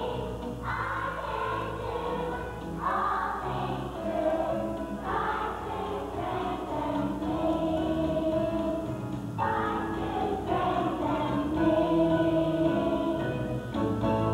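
Children's choir singing together in sustained phrases, with a steady low musical backing beneath the voices.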